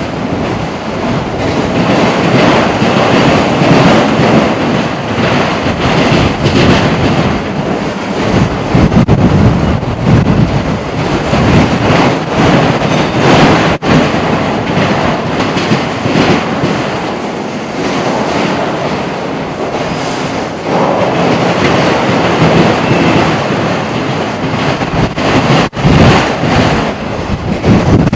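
Freight train cars rolling steadily past close by, their wheels clacking over rail joints without a break.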